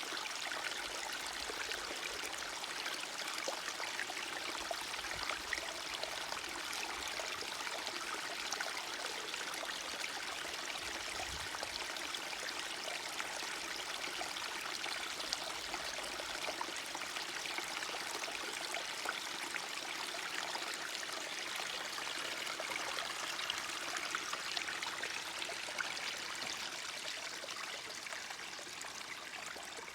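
Small forest stream running steadily, water babbling and trickling over stones.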